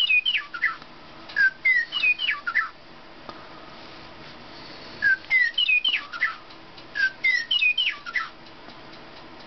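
Recorded meadowlark song played from a squeezed Real Sounds plush toy bird's built-in sound unit: four short phrases of clear whistled notes, mostly sliding downward, each lasting about a second and a half, with a longer pause in the middle.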